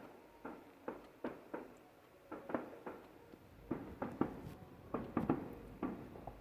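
Distant fireworks display: a quick, irregular run of bangs, each dying away briefly, about two or three a second and growing thicker in the second half.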